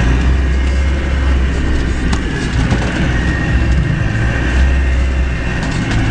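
Off-road vehicle engine running as it crawls along a muddy trail, heard from inside the cab: a steady low rumble with road and body noise, and a single sharp knock about two seconds in.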